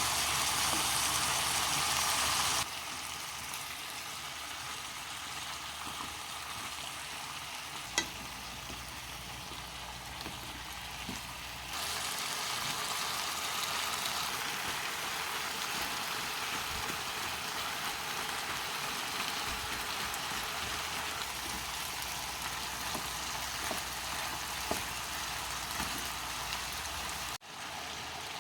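Food sizzling as it fries in a pan, a steady hiss with an occasional click or pop. It drops in level a few seconds in, rises again about twelve seconds in, and cuts out for a moment near the end.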